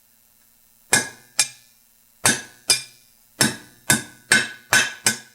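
Hammer tapping a cold steel rivet through the holes of a pair of blacksmith tongs, driving it past the burr left in the hole: nine sharp ringing metal strikes, mostly in pairs, coming closer together toward the end.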